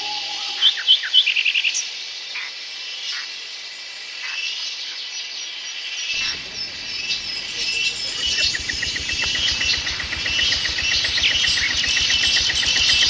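Forest ambience: a steady chorus of crickets and other insects with birds chirping over it, loudest in a quick run of chirps about a second in. About six seconds in a low rumble joins, and a fast pulsing trill starts soon after.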